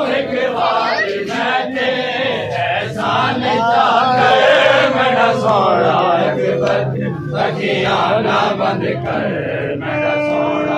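A crowd of men chanting a noha, a Shia mourning lament, many voices together in a continuous refrain.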